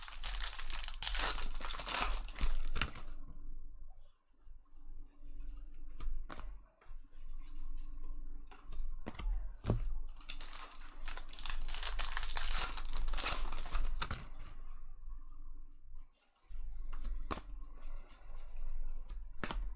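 Bowman baseball card packs being torn open, the wrappers crinkling, in two longer stretches, from the start to about three seconds in and again from about ten to fourteen seconds in, with light clicks and rustling between.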